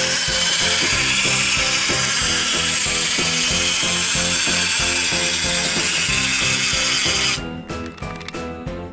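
Motorised plastic Pororo amusement-park slide playset running, its gear mechanism going steadily and loudly for about seven seconds before it stops suddenly. Background music plays underneath.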